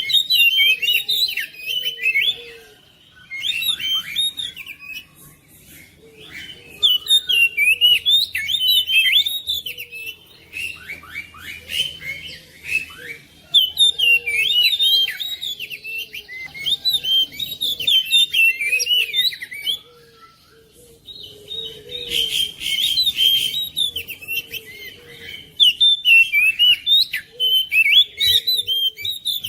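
Oriental magpie-robin (kacer) singing: long phrases of fast, varied chirps and whistled notes, broken by short pauses about three, six and twenty seconds in.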